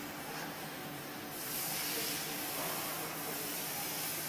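Steady hiss of air from a semi-automatic flat screen printing machine's pneumatic system, over a low machine hum. The hiss grows louder and brighter about a second and a half in.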